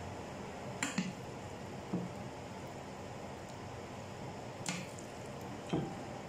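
A large spoon scooping and spreading white-sauce elbow macaroni in a baking pan: a few short soft taps and squishes of the spoon against the pasta and the dish, two about a second in, one at about two seconds and two near the end, over a faint steady hiss.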